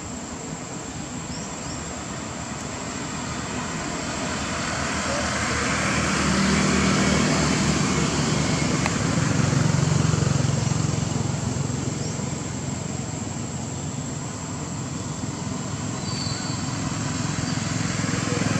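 Motor vehicles passing on a nearby road: an engine hum and road noise swell to a peak about halfway through, fade, and another vehicle approaches near the end.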